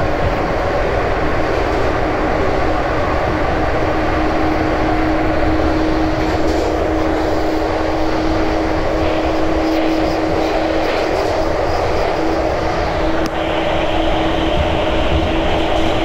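Running noise of a JR 415 series AC/DC electric multiple unit: a steady rumble of wheels and running gear with a constant hum held throughout, and a single click about thirteen seconds in.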